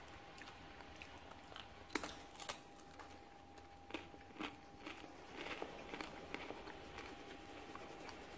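Faint clicks and taps of a wooden coloured pencil being set down on and picked up from a table, then soft scratching of the pencil colouring on paper. A thin steady whine sits under it throughout.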